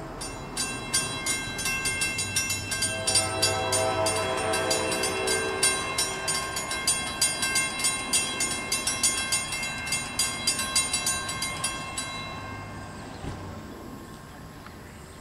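Railroad grade-crossing warning bells ringing rapidly and steadily, stopping abruptly about twelve seconds in. A distant train horn sounds for a few seconds partway through, as a train approaches the crossing.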